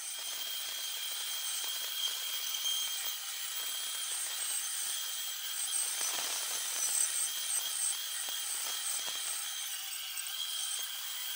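Benchtop bandsaw cutting through a block of stacked pallet-wood boards: the hiss of the blade in the wood over a steady high-pitched whine from the running saw.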